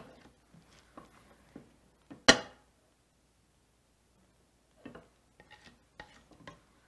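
A ladle scraping and knocking in a stainless-steel saucepan while thick béchamel sauce is spooned out into a glass baking dish. One sharp, loud clink comes about two seconds in, and a run of lighter knocks near the end.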